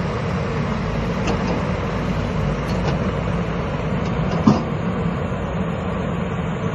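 JCB JS220LC excavator's diesel engine running steadily, with a single metallic clank about four and a half seconds in.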